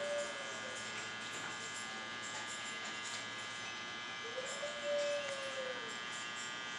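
Bulldog puppy whining twice, each whine rising then falling in pitch: a short one right at the start and a longer one about four and a half seconds in. A steady electrical buzz runs underneath.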